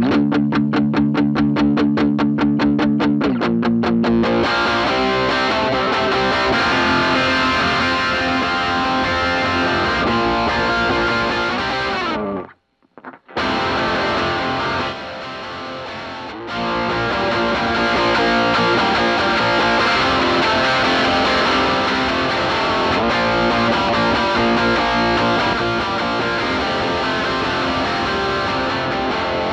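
Electric guitar driven through a Donner overdrive/distortion pedal into a Bassman 59 tube amp: fast repeated picked notes for the first four seconds, then fuller distorted playing. The sound cuts out completely for under a second about twelve seconds in and is quieter for a moment around fifteen seconds.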